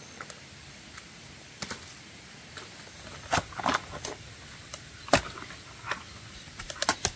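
Irregular sharp clicks and knocks over a faint steady hiss, with a cluster of them about three and a half seconds in, the loudest knock about five seconds in, and a quick run of clicks near the end.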